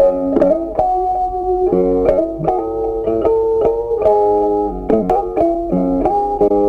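Background music: a plucked guitar playing a quick melody of sharply struck notes.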